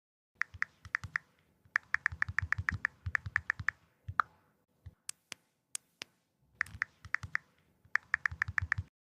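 Computer keyboard typing in quick bursts of keystrokes, with a pause in the middle where only a few single sharp clicks sound.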